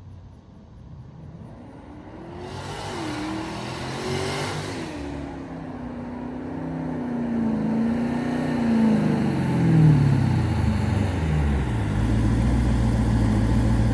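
Twin-turbocharged 5.7 Hemi V8 of a Dodge Charger revving up, with a rush of high hiss about three seconds in. The engine pitch then falls away and settles into a steady idle near the end.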